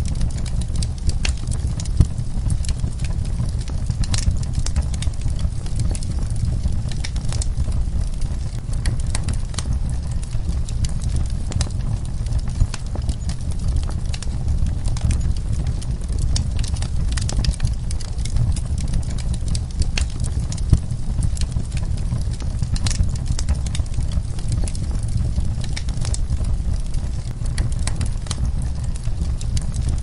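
Wood fire burning in a fireplace, logs crackling: many sharp, irregular pops and snaps over a steady low rumble of the flames.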